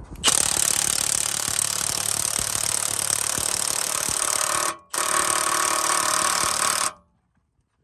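Cordless impact wrench hammering a coil spring compressor's threaded shaft down through a deep socket and extension, compressing the rear coil spring. It runs for about four seconds, stops briefly, then runs for about two more seconds before cutting off.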